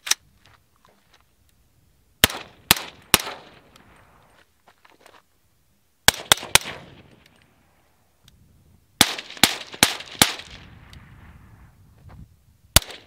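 Suppressed semi-automatic AR-style rifle with a Witt Machine Dirty 30 .30-calibre suppressor firing about a dozen shots in quick strings of three or four, roughly half a second apart. Each shot is a sharp crack with a short echoing tail.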